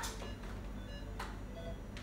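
Patient monitor giving short, repeated electronic beeps, with a couple of brief rustles, one at the start and one about a second in.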